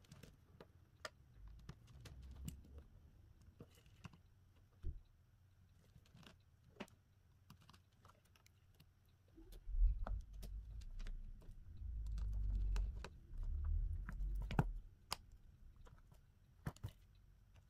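Small scattered clicks and taps of repair tools and phone parts being handled on a bench. Low dull bumps and rumbling handling noise come in from about ten to fifteen seconds in.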